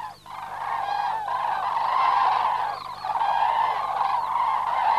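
A flock of common cranes calling: many overlapping, many-voiced, hoarse trumpeting calls.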